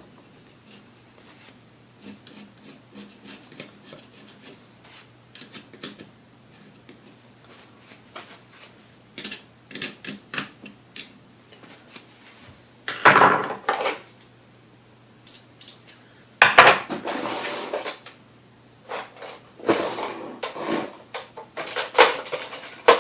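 Metal mixer parts and hand tools clinking and scraping as old grease is cleaned off the mixer's motor section: soft rubbing at first, then scattered clicks and several louder scraping clatters in the second half.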